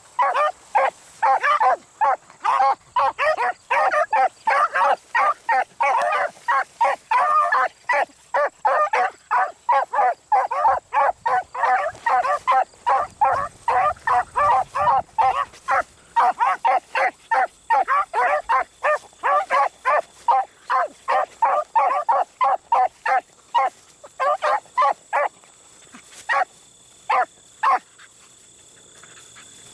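Two beagles baying while running a rabbit's scent trail, a rapid, nearly unbroken run of short barks at about three a second. The barking thins to a few scattered barks near the end and then stops.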